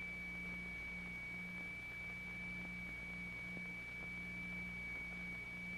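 A steady high-pitched tone over an even hiss and a low hum: the tone driving the vibrating plate that sets the sand flowing in a current.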